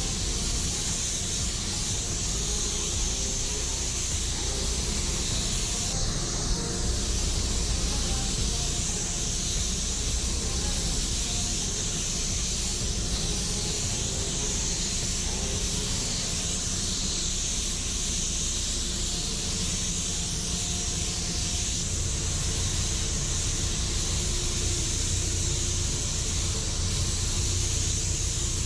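Gravity-feed automotive spray gun hissing steadily as it sprays metallic base coat, with a steady low rumble underneath.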